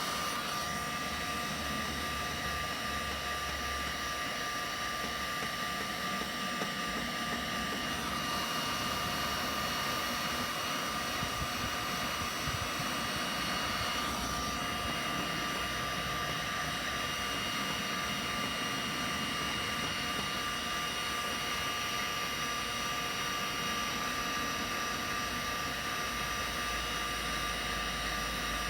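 Electric heat gun running steadily, a fan's rush with a steady high whine, as it heats the scratched plastic of a boat hull to smooth it.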